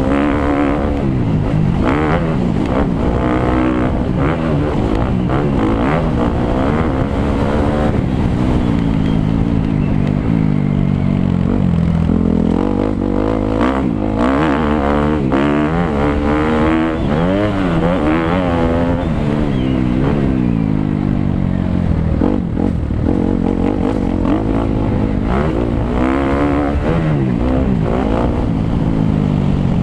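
Suzuki 250 motocross bike's engine being ridden hard, revving up and falling back again and again as it is opened up and shut off through the track's sections.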